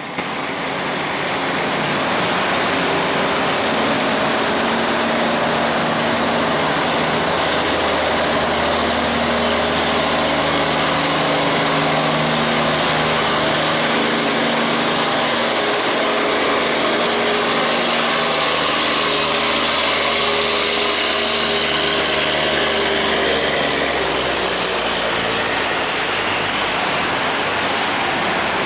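Boat engines running steadily as boats pass through, with a faint rising whine near the end.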